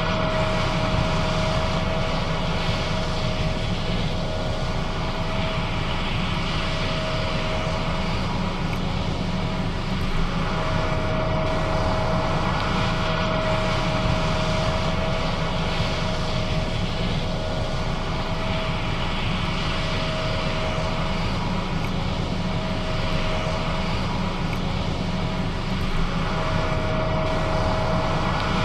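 John Deere S660 combine running steadily while harvesting soybeans: a continuous engine and machinery drone with a low rumble and a steady whine that drops out and returns a few times.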